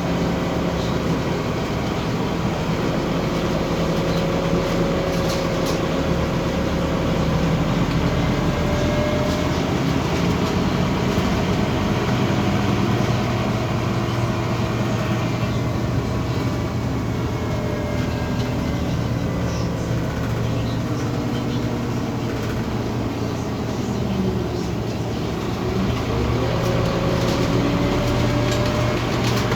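Scania OmniCity city bus's diesel engine and drivetrain running as the bus drives. Near the end the engine note drops and then climbs again as the bus slows and pulls away.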